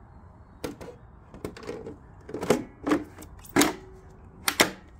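EGO 56V 12 Ah battery pack being fitted into the mini bike's battery bay: a run of uneven knocks and scrapes as it goes in, ending about four and a half seconds in with the loudest sharp click as it is pressed down and seats.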